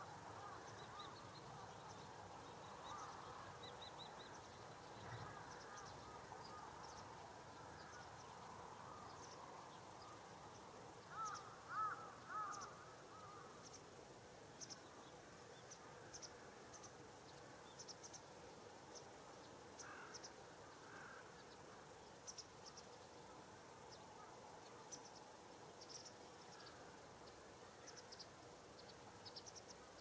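Carrion crows cawing faintly, a short run of calls loudest about eleven to thirteen seconds in and a couple more about twenty seconds in. Short, high chirps come and go throughout.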